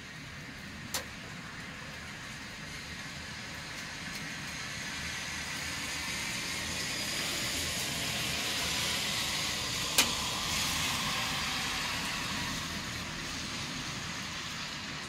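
A vehicle passing on a rain-wet street, its tyre hiss swelling slowly to a peak about nine seconds in and then fading. Two sharp ticks cut through it, one about a second in and a louder one about ten seconds in.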